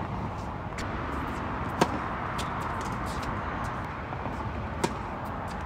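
Two sharp tennis-ball impacts over a steady background hiss: a loud pop about two seconds in, and a racket striking a serve near the end.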